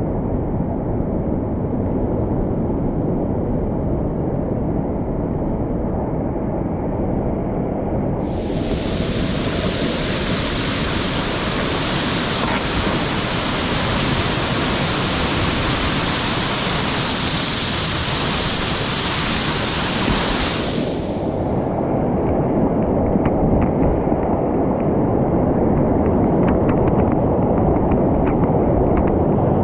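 Loud, steady rushing water of a mountain valley stream, heavy and rumbling, with a hissier spell of white water from about eight to twenty-one seconds in.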